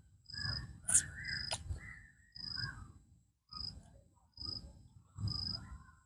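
An animal calling over and over, one short harsh call about once a second, with a faint steady high buzz underneath.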